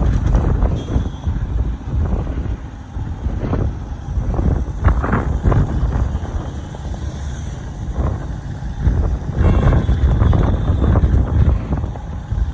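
Wind buffeting the microphone in gusts over the rumble of road traffic, recorded from a moving vehicle.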